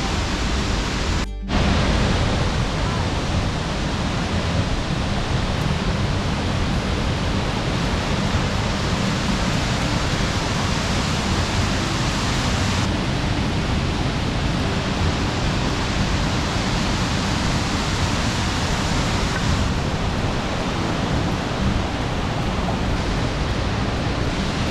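Steady rushing roar of Looking Glass Falls, water pouring down close by, cut by a brief gap just over a second in.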